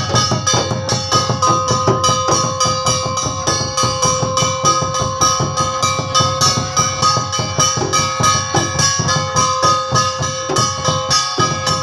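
Santali ringtone music: a keyboard melody over a fast, even drum beat.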